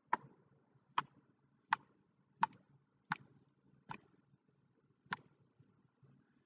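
Paintbrush tapped sharply to flick paint onto a canvas: seven crisp taps, roughly one every three-quarters of a second.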